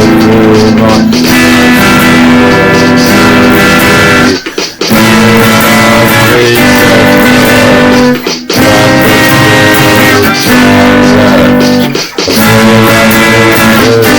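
Loud instrumental guitar music with bass, repeating in phrases of about four seconds. Each phrase ends in a brief drop-out before the next begins.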